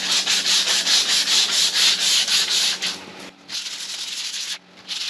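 Used sanding disc scrubbed back and forth by hand on a cast-iron table saw top to take off surface rust: a quick rhythmic rasping of about four or five strokes a second. It gets lighter a little past halfway, with two brief breaks.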